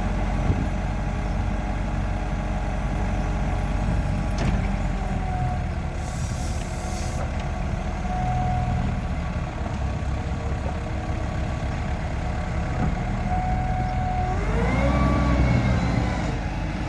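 Diesel engine of a 2005 Mecalac 12MXT excavator running steadily, with thin whining tones over it. About a second and a half before the end, the engine speeds up and its pitch rises and gets louder.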